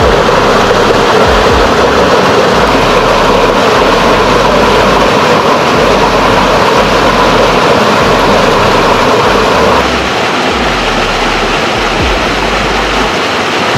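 Loud, steady rush of fast-flowing water. It drops somewhat in level about ten seconds in.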